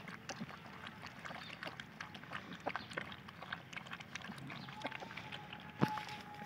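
Several puppies lapping milk from a shallow foam tray: a rapid, irregular stream of small wet clicks and slurps. About six seconds in there is one louder knock, and a faint steady thin tone is heard over the last second or so.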